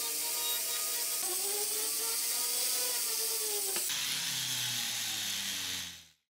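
High-speed rotary handpiece with a fine bur engraving the gold eagle head of a ring, running as a steady whine whose pitch dips and rises with the work. It cuts off sharply a little before four seconds in, leaving a hiss and low hum that fade out near the end.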